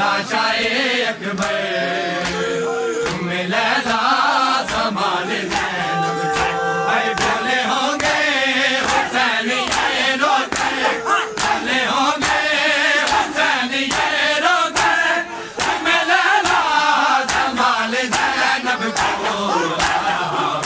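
A crowd of mourners chanting together over matam: many open hands slapping bare chests in unison, about two strikes a second.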